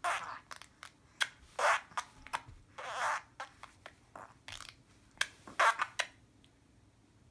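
A person making silly mouth noises: an irregular run of short breathy hisses, sputters and clicks, which stops about six seconds in.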